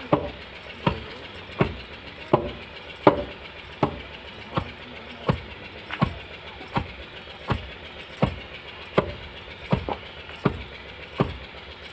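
Long wooden pestle striking raw turmeric roots in a wooden okhli mortar: steady pounding thuds, about one every three-quarters of a second.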